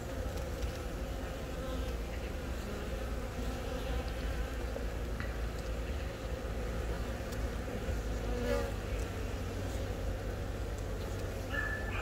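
Honeybees buzzing on the comb around a laying queen: a steady hum of many worker bees.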